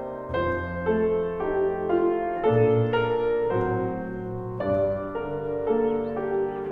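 Background piano music, slow and gentle, with sustained notes changing about every half second.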